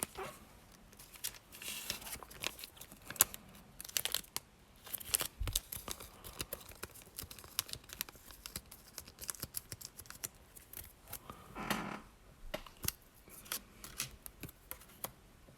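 Foil wrapper of a Pokémon booster pack crinkling and being torn open by hand, a run of irregular sharp crackles, with a low thud about five and a half seconds in.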